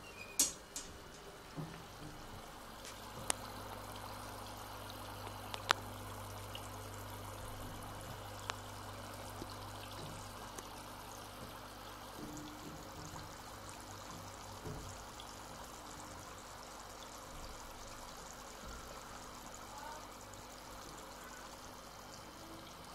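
Water running steadily into a bathroom washbasin, with a few sharp clicks in the first nine seconds.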